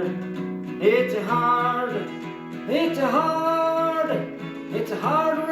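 Song: a singer's voice over acoustic guitar, three held sung phrases of the refrain 'it's a hard'.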